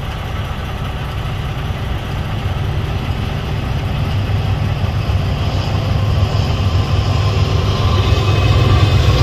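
Union Pacific diesel locomotives approaching, their deep engine rumble growing steadily louder.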